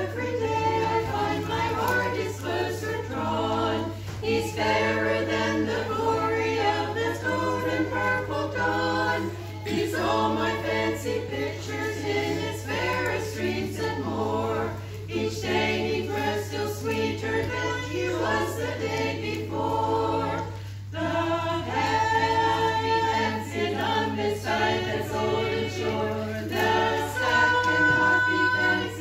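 A small choir of older women singing a song together a cappella, their voices rising and falling phrase by phrase with brief pauses for breath.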